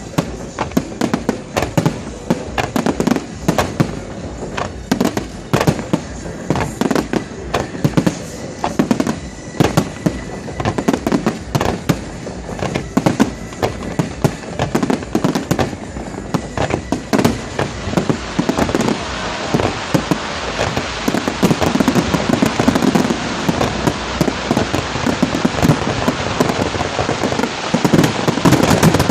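Fireworks display: a quick succession of sharp shell bursts, turning from about eighteen seconds in into a dense, continuous crackle that grows louder toward the end.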